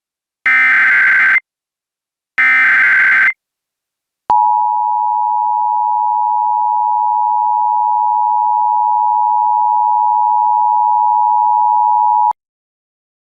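Two Emergency Alert System SAME header data bursts, each about a second long with a short gap between, followed by the EAS attention signal: a steady two-tone alarm held for about eight seconds that cuts off suddenly. These are the tones that open an emergency alert broadcast.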